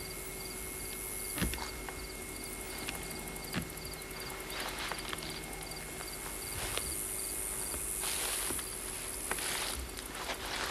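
Insects chirping in a fast, repeating pattern in the field grass. A few sharp knocks and some rustling from someone walking and handling the camcorder come through over them.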